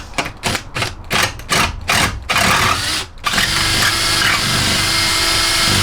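Power tool undoing a bolt: short bursts about four times a second, then running steadily from about three seconds in.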